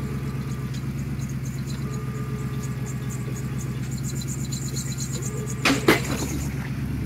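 Jeep engine running steadily under a winch recovery, with two sharp knocks close together about five and a half seconds in.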